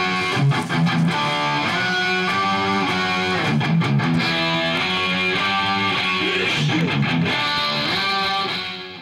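Electric guitar played with a pick, a steady run of single notes and chords, fading out near the end.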